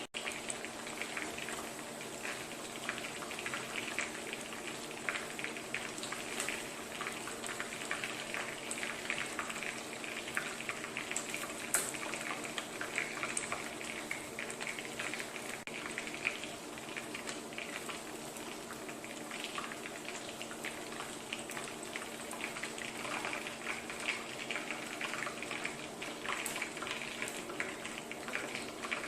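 Batter-coated chicken pieces deep-frying in hot oil: a steady, dense sizzle full of small crackles and pops.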